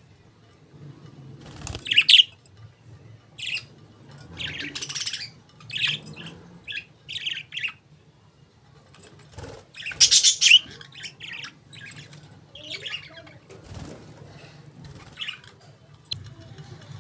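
Budgerigars chirping and warbling in irregular bursts of short high chirps, loudest about two seconds in and again around ten seconds.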